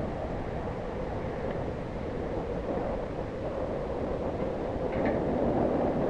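Wind buffeting the microphone, a steady rushing rumble.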